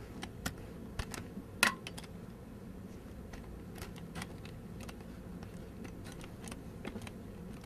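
Scattered light clicks and crinkles at irregular intervals, the sharpest about one and a half seconds in, over a low steady hum: a cat playing with a crinkly foil sparkle ball on carpet.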